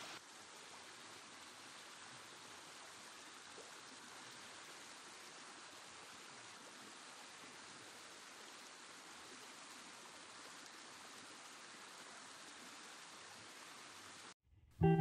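Stream water pouring over a small weir in a steady rush. It cuts off suddenly near the end, and plucked guitar music begins.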